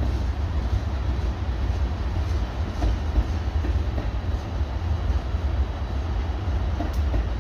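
CN freight train's cars rolling past with a steady low rumble.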